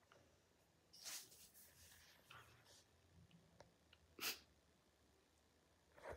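Faint breaths and sniffles of a girl starting to cry: a long breath about a second in, a short sharp sniff a little after four seconds, and another breath at the end.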